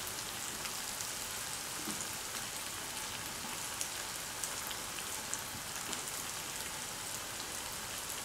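Breadcrumb-coated paneer fingers shallow-frying in hot oil in a pan: a steady sizzle with scattered crackles and a few sharper pops.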